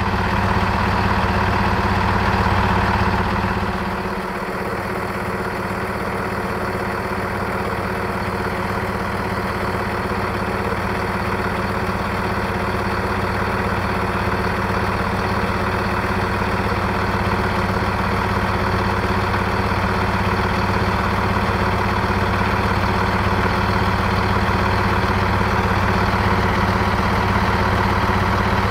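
Diesel train engine idling steadily; its lowest rumble drops away briefly about four seconds in, then returns.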